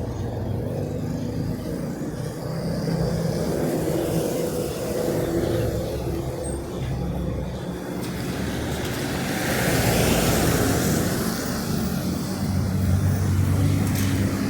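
Road traffic: vehicle engines running close by, with one vehicle passing about two-thirds of the way through, its hiss swelling and fading.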